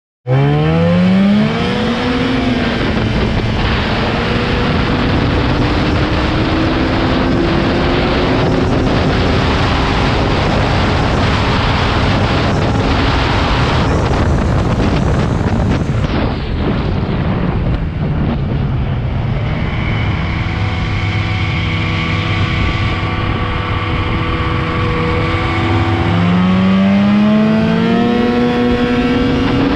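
Arctic Cat snowmobile engine revving up hard as the sled accelerates, its pitch climbing steeply, then running flat out under heavy wind rush on the microphone. About halfway the wind rush falls away and the engine settles to a steadier note. Near the end its pitch climbs again as it accelerates once more.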